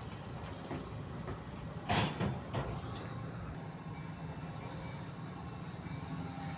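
Kobelco SK130 excavator's diesel engine running steadily, with a loud short metallic clank-and-creak of the working machine about two seconds in and a smaller one just after.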